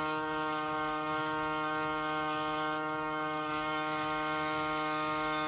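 Background music: a steady, unchanging droning tone held at one pitch.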